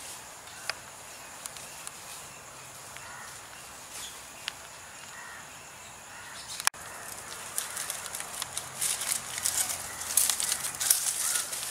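Outdoor rural ambience with faint, scattered bird calls. About two-thirds of the way through, the sound cuts abruptly, and dense, irregular rustling and crackling follows.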